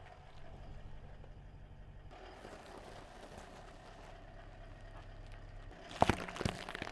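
A low steady hum, then about six seconds in a burst of sharp crunches and snaps as a car tyre rolls onto fresh cucumbers and crushes them.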